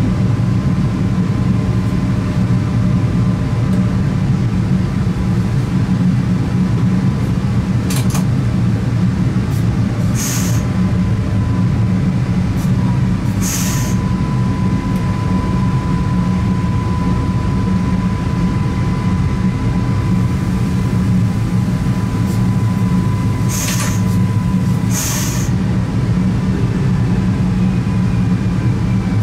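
45WE electric multiple unit running, heard inside the driver's cab: a loud steady low rumble. Several short air hisses come through it, and for about ten seconds in the middle a thin steady tone sounds.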